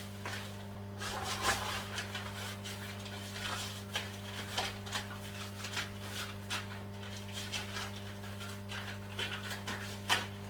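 PVC opera gloves being pulled on, with irregular rubbing and rustling of the shiny vinyl against the hands and arms and a few small clicks, over a steady low hum.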